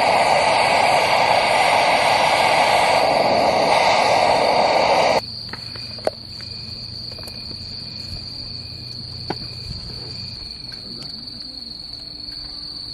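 Crickets chirping in one steady high-pitched trill. For the first five seconds a loud, even hiss covers them, then cuts off suddenly.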